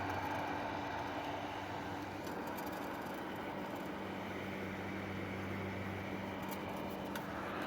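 Vintage Handy Hannah hair dryer running: a steady rush of blown air over a low motor hum.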